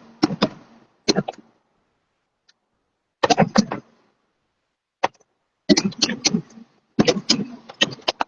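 Fireworks crackling: several clusters of rapid sharp pops, each under a second long, separated by silent gaps.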